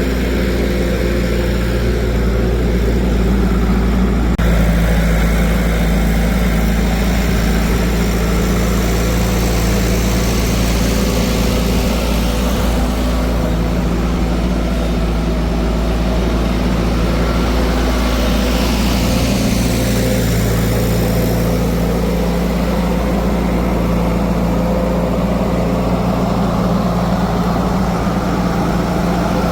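A heavy vehicle engine idling steadily, with a constant low hum.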